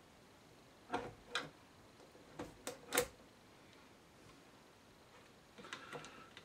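Small hard clicks and taps as a threaded ring for the power cord is worked and screwed into place by hand: a cluster of about five in quick succession, the loudest about three seconds in, then a few more near the end.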